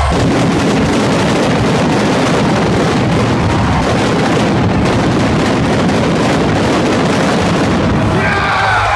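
Arena stage pyrotechnics going off in rapid succession: a loud, dense crackling of bangs and pops from flame jets and spark fountains. The theme music comes back in near the end.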